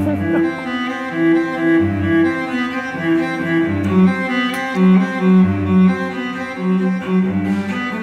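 Background music: a bowed cello playing a steady, sustained melody over a recurring low note.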